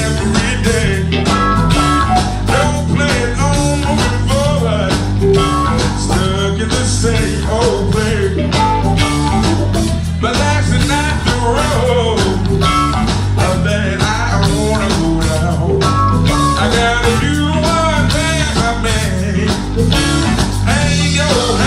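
Live electric blues band: an electric guitar plays a solo with bent and wavering notes over steady bass and drums.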